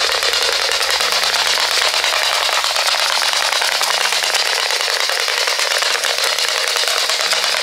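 Small black DC motor of a toy four-bar walking machine running on a 9-volt battery, a steady dense rattling whir from the motor and its plastic linkage.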